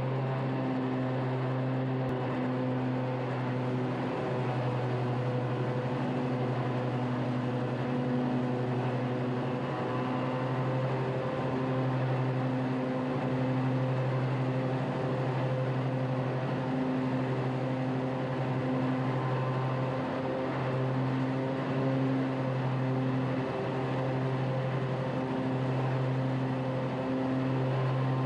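Kohler engine on a zero-turn mower running steadily at its 3600 RPM fast speed setting with the mower deck engaged, the governor holding the speed constant as the load changes.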